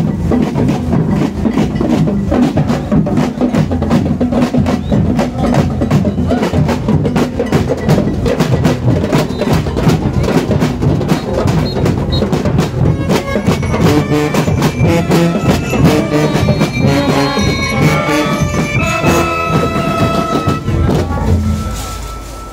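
Band music with drums and brass: drums beat a fast, even rhythm throughout, and a melody on pitched instruments comes in about halfway through. The music dies down at the very end.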